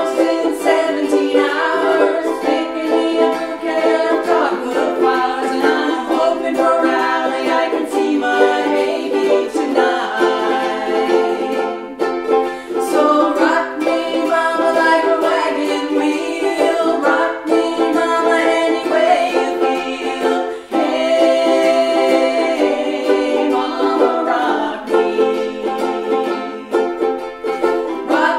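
Two ukuleles strummed together in a duet, with a singing voice over them.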